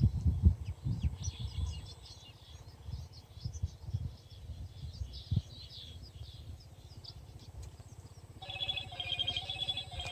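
Mobile phone ringtone starting about eight seconds in, a repeating pattern of electronic tones. Before it, faint bird chirps over low handling thumps.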